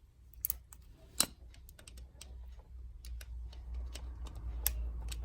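Irregular small clicks and taps of hands and a tool handling the wiring and plastic parts of an opened wall socket, with two sharper clicks in the first second and a half. A low rumble grows from about three seconds in.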